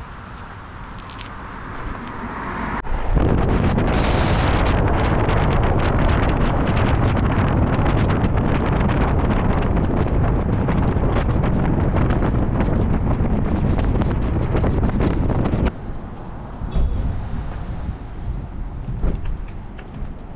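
Wind buffeting the microphone as a loud, even roar. It starts abruptly about three seconds in and cuts off suddenly about four seconds before the end, leaving a quieter rumble.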